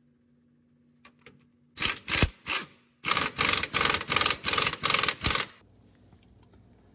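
A wrench working a bolt, making a loud metallic clatter: three short strokes, then a run of rapid bursts about four a second that stops suddenly.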